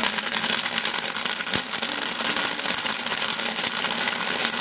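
Microwave oven running with burning contents inside, a dense, steady crackle and hiss of many fine clicks.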